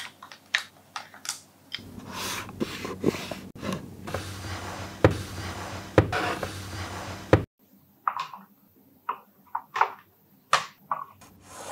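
Wooden Montessori materials being handled: wooden pieces knock and click as they are set into a tray and onto a wooden board. In the middle there is a few seconds of scraping and sliding, fitting a wooden cabinet drawer being pulled out.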